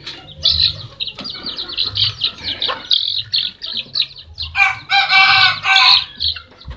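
Caged bantam chickens chirping and clucking in short high notes, then a rooster crows loudly in two parts about four and a half seconds in.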